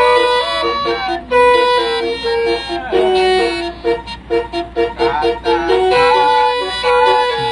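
Basuri melodic bus horn sounding through rear-mounted trumpets, playing a tune: quick alternating short notes under longer held tones, with brief breaks between phrases.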